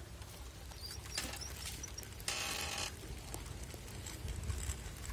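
Benhur Deluxe chopper bicycle rolling on asphalt: faint freewheel ticking over a low tyre rumble, with one short noisy burst about two seconds in.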